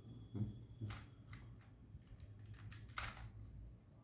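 Plastic Rubik's cube being twisted by hand: a few irregular clicks and clacks as its layers turn, the sharpest about half a second in and about three seconds in.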